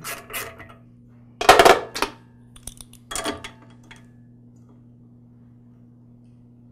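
Metal hand tool clinking and clattering at the ignition coil bolts of a lawn mower engine as they are loosened: a few light clicks, then two louder metallic clatters about a second and a half and three seconds in. After that only a faint steady hum remains.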